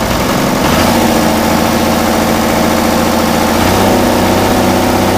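Oliver 770 tractor's six-cylinder engine running steadily. It gets louder about a second in and holds there.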